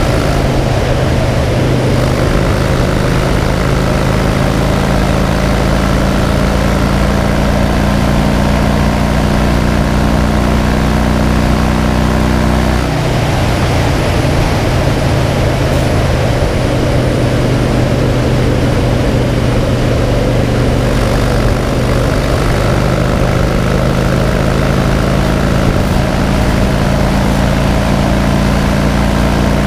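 2009 Harley-Davidson Crossbones' air-cooled V-twin running steadily at cruising speed, with wind and road noise over it. A little before halfway the engine note drops and dips briefly, then holds steady again.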